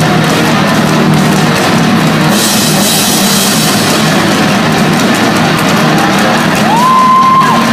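Live heavy metal band playing at full volume, with drum kit and distorted guitar. A cymbal crash opens out about two seconds in, and near the end a held high note bends up and then drops off.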